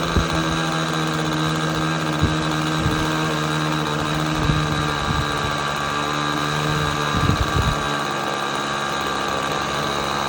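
Nitro glow engine of an RC model airplane running at a steady speed, with a few short clicks.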